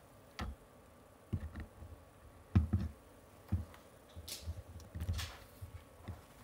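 Scattered light knocks and taps with a few brief rustles; the loudest is a dull thump about two and a half seconds in.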